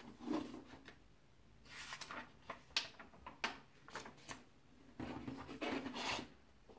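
Thin, see-through rice-paper booklet pages rustling and crinkling as they are turned by hand. The sound comes in several separate bursts, with a few sharp crisp snaps in the middle and a longer rustle near the end.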